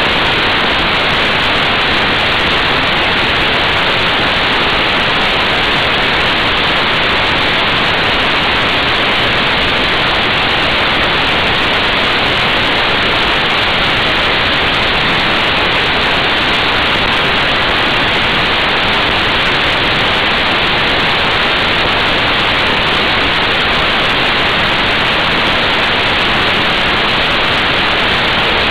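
Steady, loud rush of wind over a motorcycle-mounted camera's microphone at motorway speed: an even hiss with no engine note or other sound standing out.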